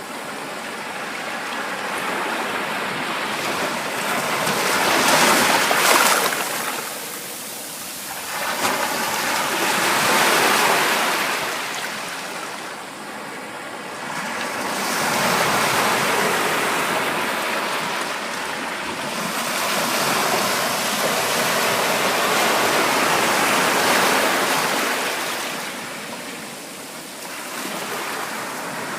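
Ocean waves breaking and washing up a shore: a rushing hiss that swells and falls back every four to six seconds, loudest about six seconds in.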